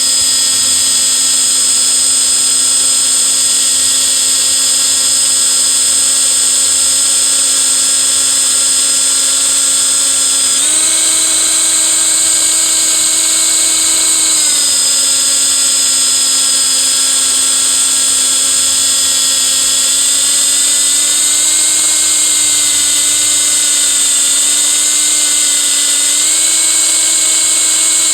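Power drill spinning a dryer-vent cleaning brush through the duct, a steady motor whine with hiss that steps up in pitch about ten seconds in, drops back a few seconds later, wavers, and rises again near the end as the load on the brush changes.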